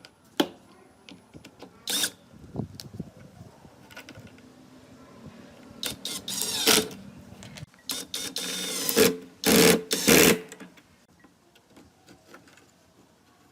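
Workshop tool noise: a sharp knock, then several short bursts from a small electric tool, some rising in pitch as it spins up, with the loudest bursts in the second half.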